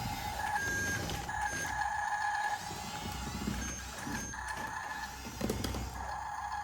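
Electric drive motors and gearboxes of RC construction machines whining, starting and stopping several times over a low rumble.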